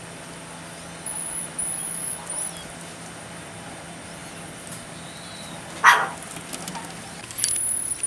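Marmosets giving short, very high-pitched whistling calls, a few about a second in and more near the end, with one sharp knock in between.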